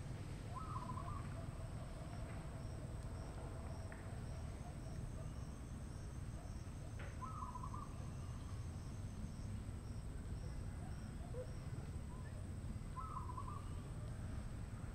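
Outdoor ambience: a steady high insect drone over a low rumble, with a short call repeated three times, about six seconds apart.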